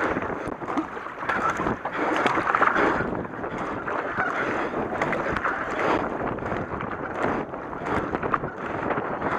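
Double-bladed kayak paddle strokes splashing into and out of river water, alternating sides in a steady racing rhythm, with wind buffeting the head-mounted camera's microphone.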